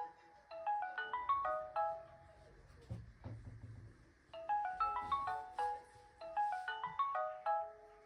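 Old Samsung mobile phone playing its ringing melody through its speaker: three quick runs of short notes stepping up and down, each about a second and a half, with pauses between. A low knock comes about three seconds in.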